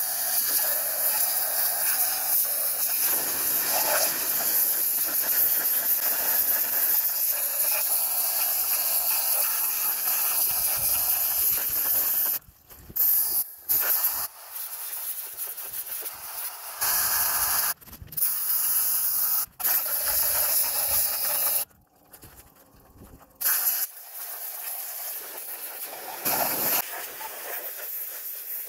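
Pressure washer jet spraying an intake manifold, a loud steady hiss of water. In the second half it cuts off and restarts several times, with a couple of short gaps and one longer one.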